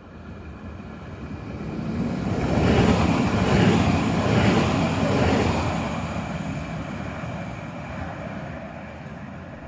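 A DB class 442 Talent 2 electric multiple unit running through a station at speed without stopping. Its wheel-on-rail and running noise swells as it approaches, is loudest about three to five seconds in as it passes close, then fades as it draws away.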